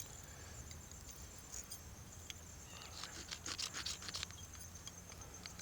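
Knife blade scraped down a ferrocerium fire-starter rod to throw sparks onto cotton tinder: a quick run of faint, sharp scrapes about three seconds in.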